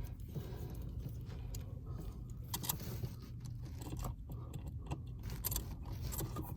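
Scattered light clicks, rustles and small metallic clinks of hands working electrical cable into a junction box, over a steady low hum.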